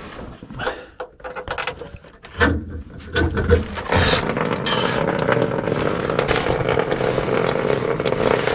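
Scraping and small knocks as a tool pokes at a clogged fuel-tank drain. About three seconds in, old gasoline starts gushing out into a drain pan, and it keeps running in a steady rush.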